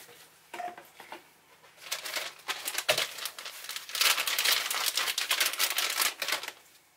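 Crinkling and crackling of packaging being handled, in short spells at first, then denser and louder from about four seconds in until just before the end.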